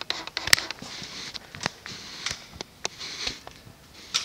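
Footsteps on a concrete workshop floor, about two steps a second, each a sharp tap with some scuffing between them.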